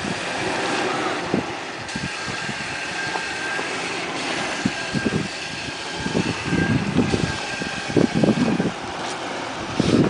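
Dodge Ram Power Wagon's 5.7-litre HEMI V8 running at low revs as the truck crawls over loose rock, with irregular low thumps and gusts strongest in the second half.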